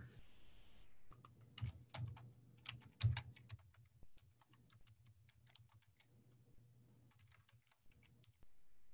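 Typing on a computer keyboard: faint, irregular key clicks in quick runs, ending shortly before the end.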